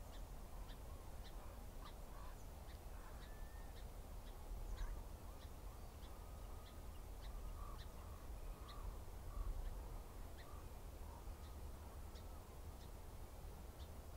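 Faint outdoor background of distant bird calls: a string of short, high chips about twice a second, with scattered lower calls, over a low rumble.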